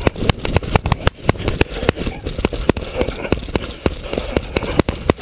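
Camera handling noise while its carrier runs across grass and a gravel path: many irregular clicks and knocks over a steady rumble of wind on the microphone.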